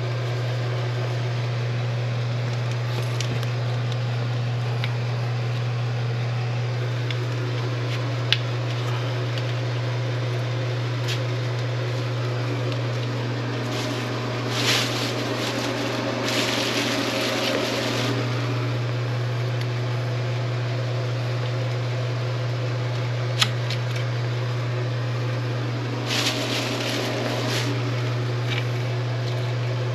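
Electric drain-cleaning machine running steadily with a constant low motor hum while its cable works in the drain. There are two louder stretches of rushing, scraping noise, one around the middle and one near the end, and two sharp clicks.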